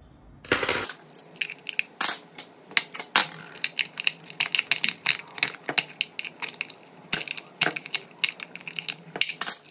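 Irregular clicking and crackling of a flame diffuser's translucent plastic housing being handled and pried at to work out a glued-in LED strip.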